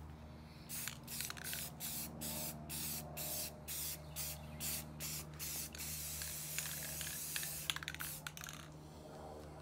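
Spray paint hissing onto a bicycle frame in quick short bursts, about three a second, then one longer spray of a second or two and a few more short bursts near the end.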